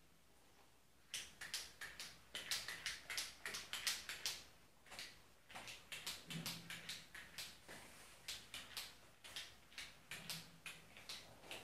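A whiteboard being wiped with an eraser: a quick, irregular run of rubbing strokes, several a second, starting about a second in.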